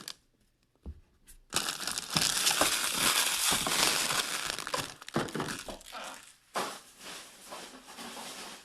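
Plastic wrapping and card packaging crumpled and crinkled by hand, starting after a second or so of quiet. It is dense and continuous for a few seconds, then thins to scattered crackles.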